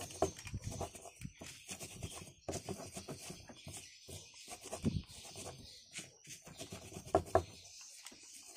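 Pestle grinding and crushing chilies and salt in a stone mortar (Indonesian cobek), in irregular rubbing strokes, with two sharper knocks about seven seconds in.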